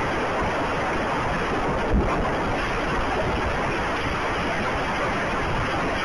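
Storm wind and driving rain, a steady rushing noise on the microphone, with one low thump about two seconds in.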